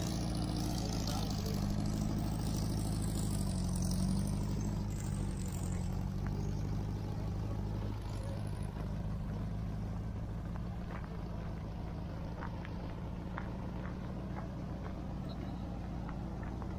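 A car engine running at low speed, steady, with a slight rise and fall in pitch a few seconds in.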